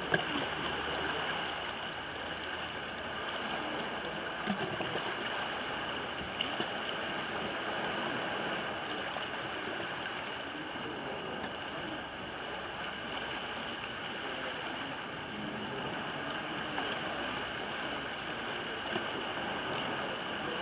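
Steady sound of sea water lapping and sloshing, with a few brief clicks scattered through it.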